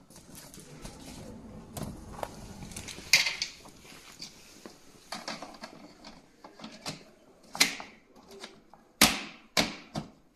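Folding plastic storage bin being assembled: its panels and frame pressed and snapped into place, giving a string of sharp plastic clicks and knocks, with a loud one about three seconds in and a loud pair near the end.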